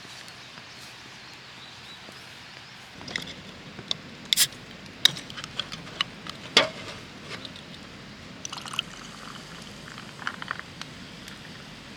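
Wood campfire crackling: a steady hiss with irregular sharp pops and snaps, two of them loud, and a run of small crackles later on.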